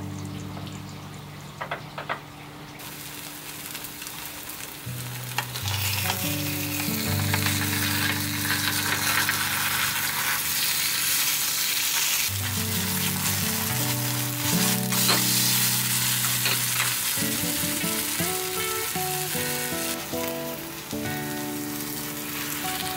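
Grated potato pancake sizzling in hot oil in a nonstick frying pan, with a few clicks and scrapes of a spoon and wooden spatula against the pan. The sizzle builds a few seconds in and eases near the end, over soft background guitar music.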